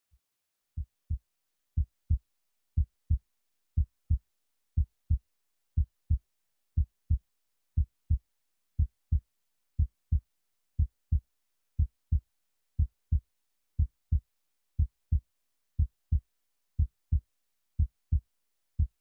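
Heartbeat sound effect: paired low thumps, lub-dub, about one beat a second, starting about a second in and keeping an even pace.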